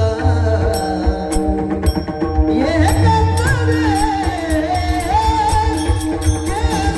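Marathi devotional bhajan: steady held notes with a drum and small hand cymbals keeping an even beat, and a male singing voice that takes up a wavering melodic line about two and a half seconds in.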